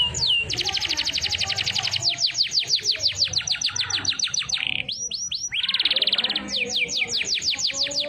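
Domestic canary singing: fast runs of high notes that each sweep down in pitch, in a siren-like phrase, alternating with very rapid trills. There is a short break about five seconds in, then more falling notes.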